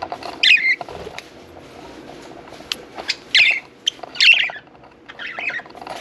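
Budgerigars calling: four short calls spread through the few seconds, with a few faint clicks between them.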